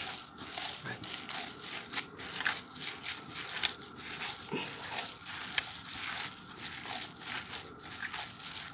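Hands kneading raw minced beef mixed with rice and chopped herbs: a steady run of soft wet squishes, about two or three a second, as the tolma filling is worked until even.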